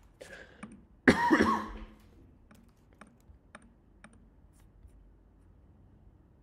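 Scattered computer keyboard and mouse clicks from someone working at a computer, with one louder, short sound lasting under a second about a second in.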